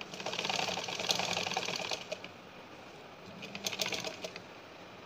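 Sewing machine stitching a narrow folded hem in cotton fabric: a rapid run of needle strokes for about two seconds, a pause, then a second, shorter run about three seconds in.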